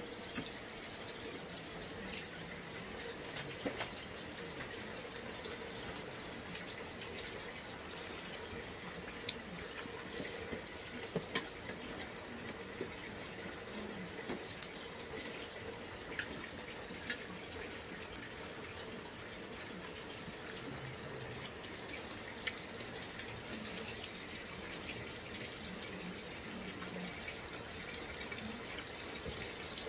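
Water running steadily in an even hiss, with a few faint clicks and taps over it.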